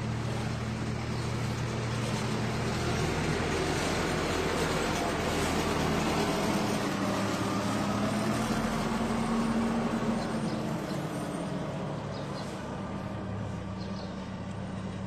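Hidromek backhoe loader's diesel engine running as the machine drives close past. The engine note rises and grows louder from about seven to ten seconds in, then eases back.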